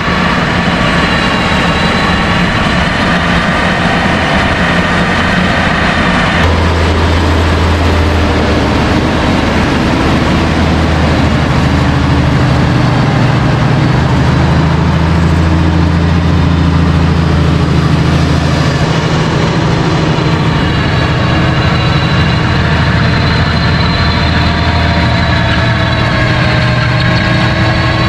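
Fendt 942 Vario tractor running steadily under load as it drives an 8 m Kuhn HR 8040 power harrow, whose rotors churn through the soil. About six seconds in the engine note gets deeper and the higher whining tones fade.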